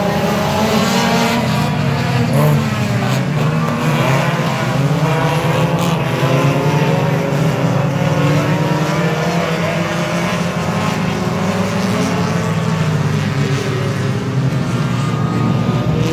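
Several dirt-track race cars running hard around the oval, their engines overlapping with pitch rising and falling as they accelerate and lift.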